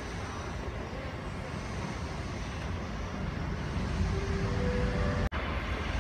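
Steady low rumble of an Airbus A320's jet engines at taxi power, growing slightly louder toward the end and broken by a sudden dropout near the end.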